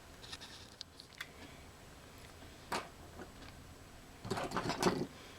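Small clicks and taps of model-railway track pieces being handled on a workbench, with one sharper click about three seconds in and a brief flurry of clicking and rubbing near the end.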